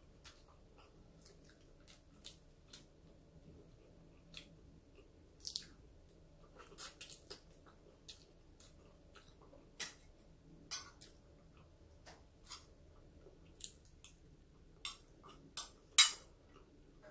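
Someone eating cooked shrimp and rice: chewing and mouth sounds with scattered short clicks and crackles of shrimp shell being bitten and peeled by hand. One louder sharp clink near the end as a spoon meets the plate.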